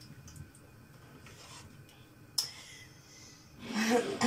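Kitchen handling sounds: a single sharp knock a little over two seconds in, then near the end a loud breathy voiced exhale from a woman, rising and falling in pitch like a sigh.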